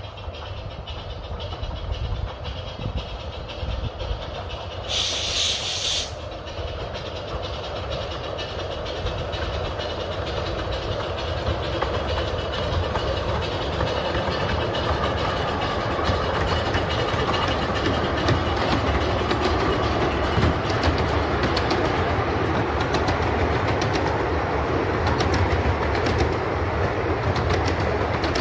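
A 10¼-inch-gauge steam locomotive hauling a train of carriages draws nearer and passes close by, its running and the clatter of wheels over the rail joints growing steadily louder. About five seconds in there is a short, high blast of steam lasting about a second.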